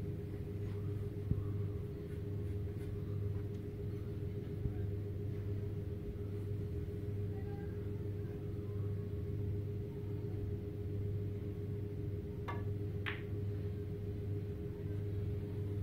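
Quiet room tone with a steady low hum. Two faint short clicks come a little past twelve seconds in, about half a second apart.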